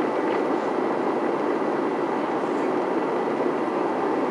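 Airliner cabin noise: the steady roar of the engines and rushing air heard from a window seat, with a faint steady high whine.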